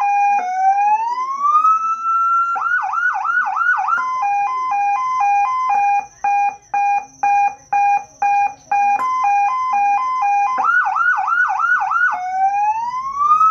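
Electronic vehicle siren played through a 100-watt horn speaker, stepping through its tone patterns. First a slow rising wail, then a run of fast yelping sweeps, then a quick alternating two-note hi-lo pattern that cuts on and off for a few seconds. Near the end come the fast sweeps again and another rising wail.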